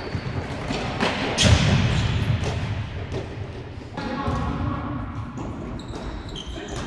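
Futsal play in a large sports hall: the ball thuds as it is kicked and bounces on the court, with short high squeaks of shoes on the floor and players calling out.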